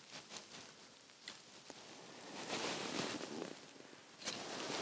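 Faint rustling and small clicks from an ice angler's clothing and rod handling as he jigs. The rustling grows louder over the last couple of seconds, with a sharp knock about four seconds in.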